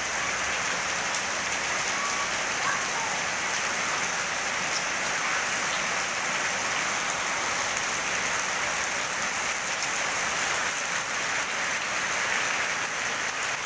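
Steady rain falling, an even hiss of drops on surfaces that holds at one level throughout.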